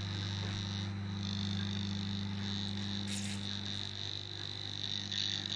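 Cornet ED88T Plus electrosmog meter in RF mode with its sound on, giving a steady buzzing hum with a high whine above it as it picks up radiation from a running microwave oven. A short click about 3 seconds in.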